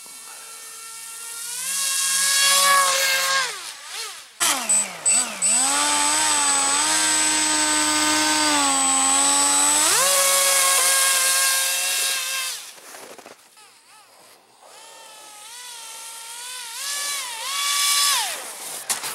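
Electric RC airboat (AquaCraft Cajun Commander on a 3S LiPo) with its motor and propeller whining, the pitch rising and falling as the throttle is worked. It holds a high, steady run for several seconds in the middle, eases off to a brief quieter lull, then revs up and down again near the end.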